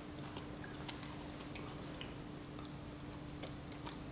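A person chewing a mouthful of tteokbokki with her mouth closed: faint, irregular wet clicks and smacks, over a low steady hum.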